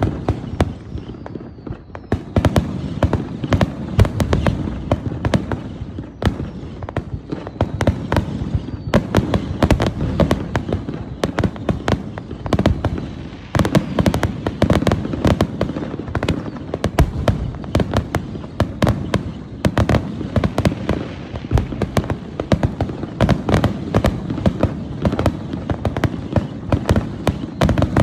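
Aerial fireworks in a finale barrage: a dense, unbroken run of bangs and crackles over a constant low rumble of booms, with a couple of faint falling whistles early on and around eight seconds in.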